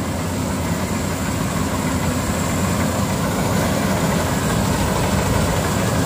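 Bimo Extreme rice combine harvester running steadily as it cuts through the rice, its engine and machinery a continuous low drone that grows slightly louder toward the end as it comes closer.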